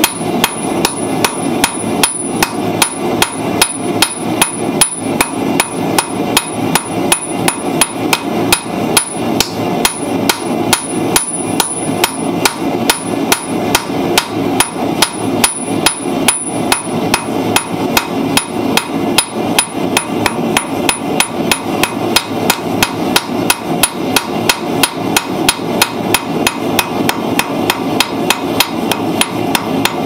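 Hand hammer striking red-hot steel on an anvil in a steady rhythm of about three blows a second, flattening and shaping a piece of angle iron held in tongs.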